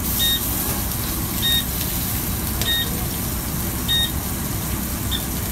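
Electronic beeper sounding four short beeps, evenly spaced about a second and a quarter apart, then a fainter one near the end, typical of a kitchen appliance alarm or timer. A steady background noise runs underneath.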